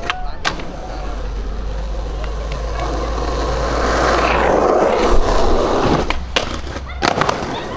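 Skateboard wheels rolling on asphalt, the rolling noise building to its loudest past the middle, with sharp clacks of the board: a couple at the start and several near the end as the board hits a concrete ledge.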